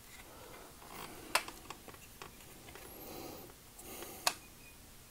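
Hands working the plastic parts of a Generation Toy GT-2 Tyrant transforming robot figure: soft rubbing with a few light clicks of plastic pieces. The two sharpest clicks come about a second and a half in and near the end.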